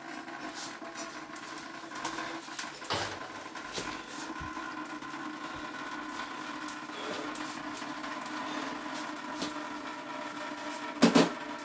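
Steady machine hum of several fixed tones, with a few light clicks and one loud knock near the end.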